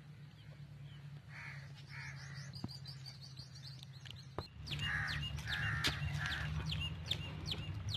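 Birds calling: a few harsh calls, then from about halfway a quick, steady series of short falling chirps.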